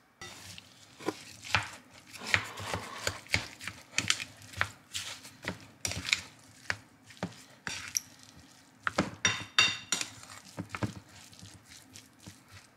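A plastic rice paddle stirring and folding cooked rice in a ceramic bowl: irregular taps and scrapes of the paddle against the bowl, with soft squishing of the sticky rice.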